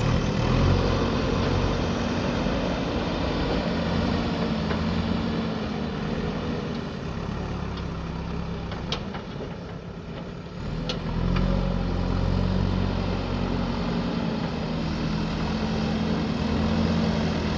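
Diesel engine of a JCB backhoe loader running steadily. It drops off for a few seconds past the middle, with a few light clicks or knocks, then picks up again.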